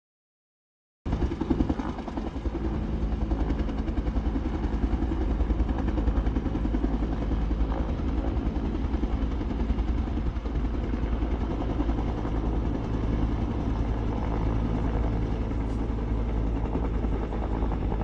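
Wildfire-fighting helicopter flying, its rotor beating steadily with a low, continuous engine tone; the sound cuts in suddenly about a second in.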